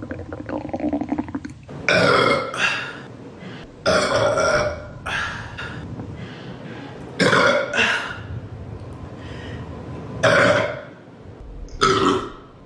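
A string of loud human burps, about eight, some coming in quick pairs, each a short pitched belch. It opens with a quieter rattling sound in the first two seconds.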